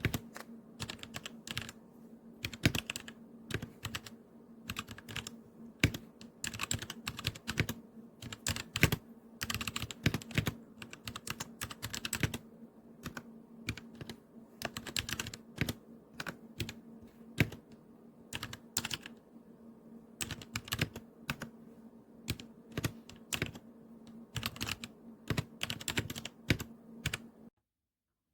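Typing on the DIERYA x TMKB T68 magnetic-switch mechanical keyboard: a quick, irregular run of keystroke clicks, with a steady low hum underneath. The sound cuts out abruptly near the end.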